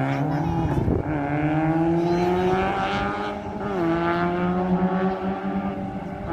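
Race car engine accelerating hard: its pitch climbs steadily, drops sharply at a gear change about four seconds in, then picks up again.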